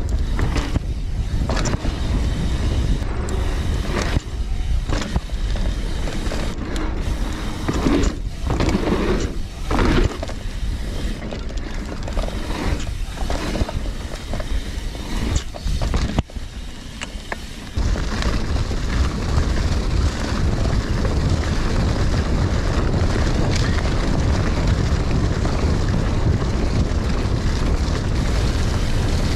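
Mountain bike ridden over dirt singletrack: tyre rumble and rattling knocks from bumps under a rush of wind on the microphone. About two-thirds of the way through it turns into a steadier, denser rush.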